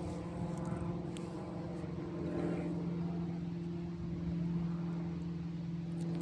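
A motor running steadily at one unchanging low pitch, a continuous engine-like hum.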